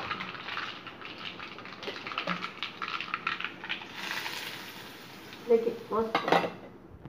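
Mustard seeds, cumin and curry leaves crackling in hot oil in a small steel tadka pan, with clinks of the steel pan and tongs. About four seconds in, a short hiss as the hot tempering is poured onto coconut chutney.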